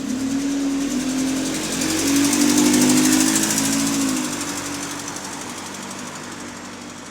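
Diesel bus engine pulling under throttle, with a rapid repetitive ticking over its note. The ticking comes whenever the engine is throttling, and its cause is unknown. The engine builds to its loudest about three seconds in, then eases off as the throttle comes back.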